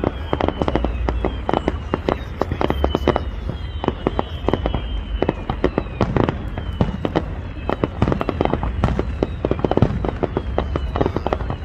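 Aerial fireworks shells bursting in a rapid, unbroken barrage of bangs and crackles. Thin high tones slide down in pitch over and over above the bangs.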